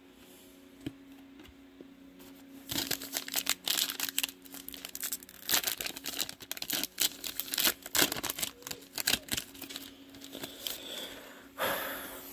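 Plastic wrapper of a Prizm football card pack torn open by hand and crinkled, in a dense run of crackles starting about three seconds in, with a last burst near the end.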